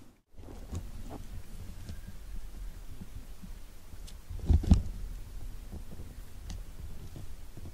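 Low rumbling and thumping of wind and handling noise on the camera microphone, with a few faint clicks and one louder low burst about four and a half seconds in.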